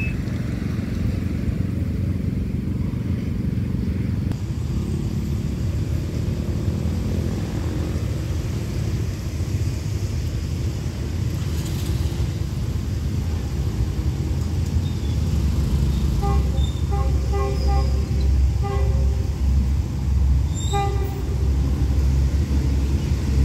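Road traffic idling at a level crossing, then the low rumble of an approaching diesel train builds through the second half, louder toward the end. About two-thirds of the way in, the train's horn sounds a series of short toots.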